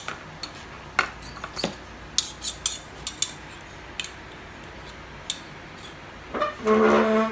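Metal spoons clinking and scraping against a bowl as thick slime is stirred, in scattered single clicks. A short held voice sounds near the end.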